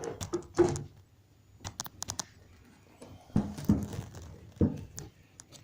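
Handling noise as a foam-lined sound-isolating box is lifted off and set aside: rustling and scraping with scattered clicks and several knocks, the loudest about half a second in.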